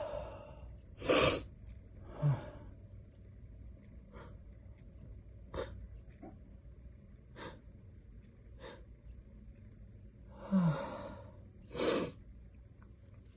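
A man with a heavy cold sneezing twice, about a second in and near the end, with quick sniffs and breaths between the sneezes and a gasping in-breath just before the second one. The sneezes are brought on deliberately.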